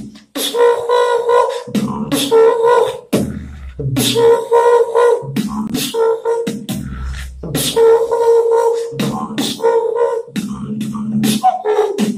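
Solo human beatboxing: sharp mouth-made snare and kick strikes in a rhythm over a hummed, pitched line, with deep bass notes about three and seven seconds in.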